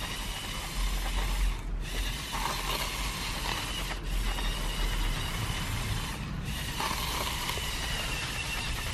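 Electric motors and plastic gearing of a Lego Technic Volvo L350F wheel loader (set 42030) whirring and clicking as it drives and pushes snow with its bucket. The whirring breaks off briefly twice.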